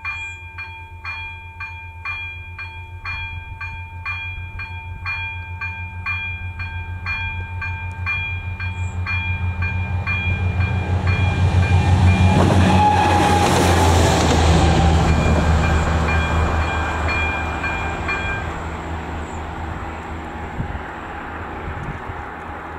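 A level-crossing warning bell (AŽD ZV02 electronic bell) rings about once a second. A ČD class 843 diesel railcar approaches and passes, its engine and wheel noise swelling to the loudest point and then fading. The bell stops about three-quarters of the way through as the crossing clears.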